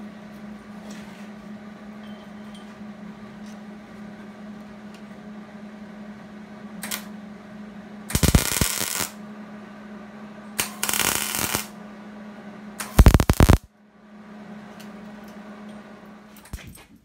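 Arc welding from a Miller welder: three short crackling bursts of about a second each, tack-welding steel angle iron into a steel tube frame, over a steady background hum.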